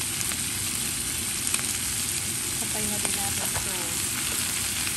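Vegetables sizzling steadily in oil in a hot stainless steel wok, with a few sharp clicks as baby corn spears are added to the pan.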